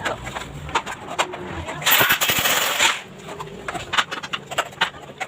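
Installation work on an aluminum window: scattered clicks and knocks, with a harsh burst of noise lasting about a second from two seconds in.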